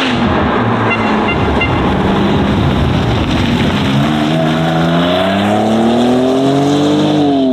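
Racing car engine sound: loud engine noise whose pitch climbs steadily from about halfway through as it revs up, then drops off just before the end.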